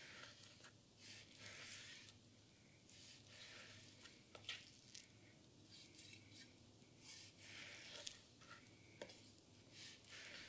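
Faint, repeated strokes of a 250mm gyuto slicing through raw pork shoulder, with a few sharp taps of the edge meeting the wooden cutting board.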